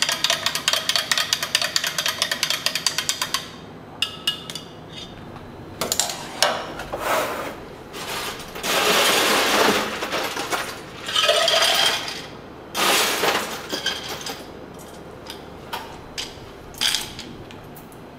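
A long spoon stirring fast in a tall glass, clinking rapidly against the sides, which stops about three seconds in. After that come scattered clicks and knocks, several loud rattling, scraping stretches as ice is scooped and dropped into a glass, and a few clinks near the end.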